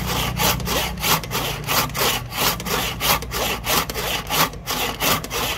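An old, rusty handsaw cutting through a rosewood blank, quick even back-and-forth strokes rasping through the hardwood. It is the worn old saw, which takes a lot of effort to cut with.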